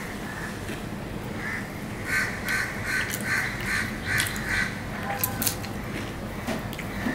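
A bird calling about seven times in a row, evenly spaced, starting about two seconds in. Near the end come a few light clicks as fingers mix rice on a steel plate.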